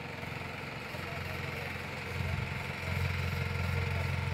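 Engine of a beach-cleaning machine running steadily, growing louder about two to three seconds in.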